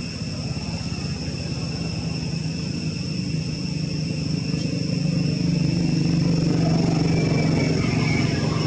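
A motor vehicle's engine drawing near, a low hum that grows steadily louder and is loudest near the end, over a steady high-pitched drone.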